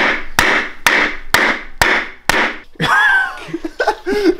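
Rubber mallet striking a wooden block laid on a plastic drift-trike sleeve: six sharp blows about half a second apart, driving the tight sleeve down over the tire.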